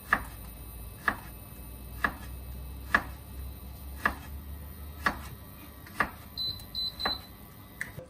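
An induction hob clicks about once a second with a low hum behind it, and three short high beeps come from its touch controls near the end.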